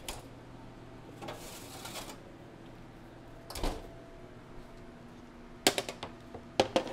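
A metal baking sheet being taken out of a wall oven by hand: a click, a brief rush, a single knock, then a run of sharp metallic clatters near the end, the loudest sounds.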